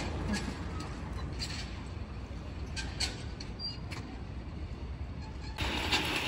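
Urban outdoor background: a steady low rumble of city traffic with a few faint clicks. About five and a half seconds in it cuts to a brighter rattling hiss as a metal roller slide is ridden.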